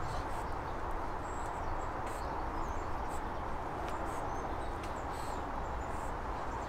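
Steady outdoor background noise with faint, high bird chirps now and then.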